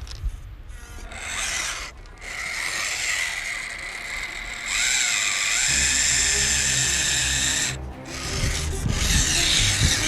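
Small electric motor and gearbox of a 1/18-scale RC crawler whining as it drives, cutting out briefly about two seconds in and again near the end, with background music that picks up a low beat about halfway through.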